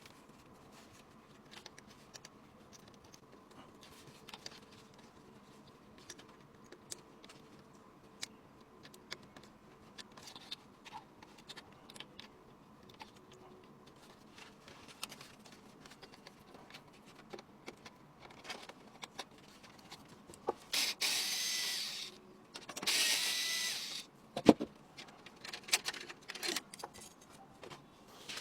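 Small clicks, taps and rubbing of computer parts being handled. About two-thirds through come two loud hissing bursts, each lasting about a second, followed by a single sharp knock.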